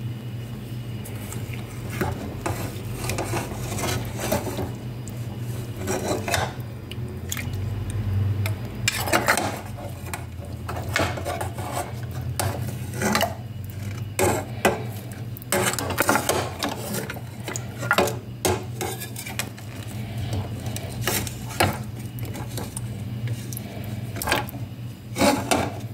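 Metal ladle stirring a thick meat stew in a stainless steel pot, knocking and scraping against the pot's sides at irregular intervals, over a steady low hum.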